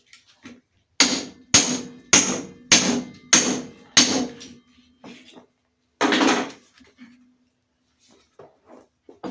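Hammer driving steel wedges into an ash log to split it: six sharp metal-on-metal strikes about 0.6 seconds apart, then one longer, noisier sound about six seconds in.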